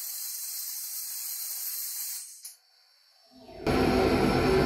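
Dry ice blaster nozzle hissing as it blasts a plastic car trim piece. The hiss cuts off about two seconds in, and after a short silence a louder, deeper rush of blasting air starts.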